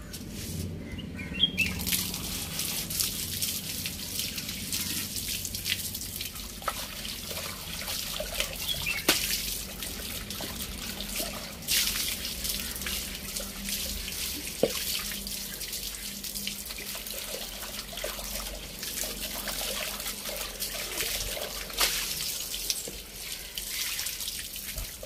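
Water running from an outdoor tap and splashing onto hands and a new unglazed clay pot as it is rinsed clean of its salt scrub. The flow starts about a second and a half in and runs steadily, with scattered splashes.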